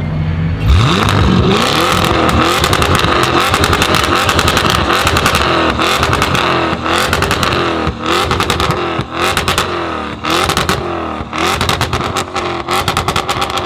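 Audi RS6 C7's twin-turbo V8 through a decatted Milltek exhaust, coming on hard about a second in, then revving with pitch repeatedly rising and falling and a run of crackles and pops.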